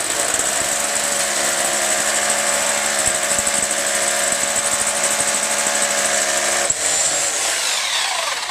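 Hammer drill boring an anchor hole straight down into precast concrete, running steadily at full speed. About two-thirds of the way through it is released and its motor winds down in a falling whine.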